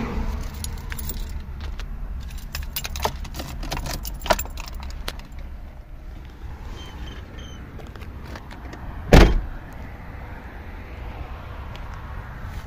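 Keys jangling and a run of sharp clicks as the ignition key of a Fiat Panda II is turned and the light stalk is switched on. About nine seconds in comes a single loud, heavy thump. A low rumble runs underneath.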